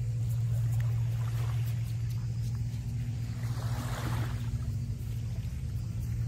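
A steady low engine drone, with a second, higher steady tone joining about two and a half seconds in. A small wave washes onto the sand about four seconds in.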